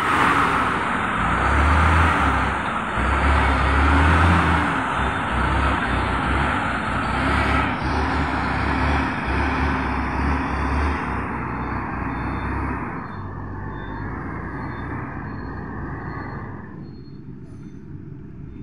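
Diesel engine of a HOWO semi-truck with a loaded trailer running as the truck drives off over dirt, its sound fading steadily as it moves away and dropping off near the end.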